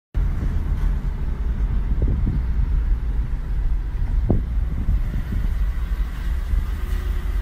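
Low, steady rumble of a car driving, heard from inside the cabin: road and engine noise, with a couple of faint bumps.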